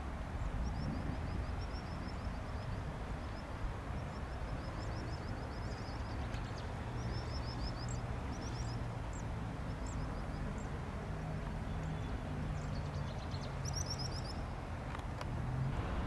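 Distant Cessna 172P's four-cylinder engine and propeller droning faintly, its pitch rising a little partway through as it powers up for the takeoff roll. Small birds chirp in short repeated trills throughout.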